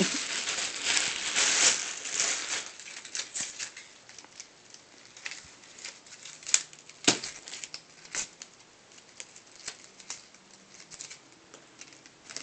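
A clear plastic bag of gift bows crinkling as a hand rummages through it, then scattered rustles and a few sharp clicks as bows are taken out and handled.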